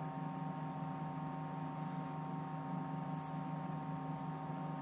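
Computer case fans running on a fan controller: a steady, even hum with a few held tones.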